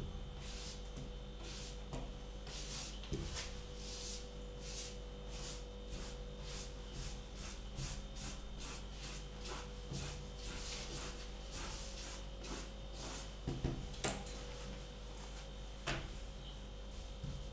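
Spatula and hand scraping and sweeping flour across a wooden work surface in short repeated strokes, about two or three a second, with a couple of light knocks near the end.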